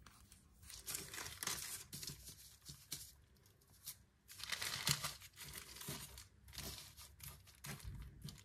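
Baking parchment paper rustling and crinkling in irregular stretches as hands press and tuck a braided dough loaf lying on it, with a quieter pause about four seconds in.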